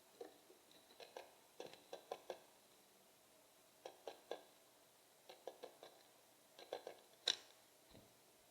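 Faint, irregular taps and clicks in small clusters of two or three, with one sharper click about seven seconds in: birds pecking and hopping on a seed feeder.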